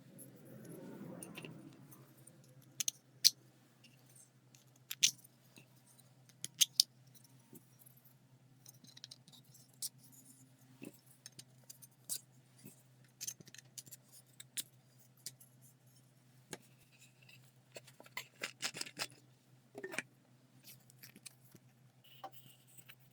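Hard 3D-printed plastic parts of a soda-bottle rocket and its fin jig being handled, giving sharp clicks and taps with short rattles. A soft hiss in the first two seconds, separate clicks about three, five and seven seconds in, and a quick run of clicking and rattling near the end.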